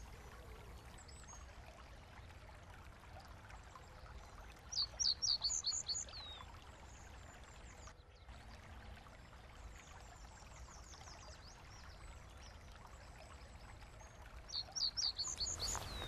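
A small songbird singing two short phrases of quick, falling high notes, one about five seconds in and one near the end, over a faint, steady background of a trickling brook.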